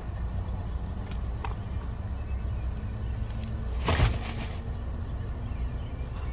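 Plastic shopping bag crinkling and rustling as it is set into a car's cargo area, loudest in one burst about four seconds in, over a steady low rumble.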